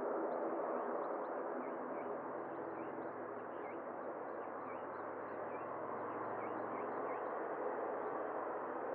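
Boeing 777-300ER's GE90 jet engines running steadily at taxi power, a continuous hum. Small birds chirp in quick, high, faint notes over it through most of the stretch.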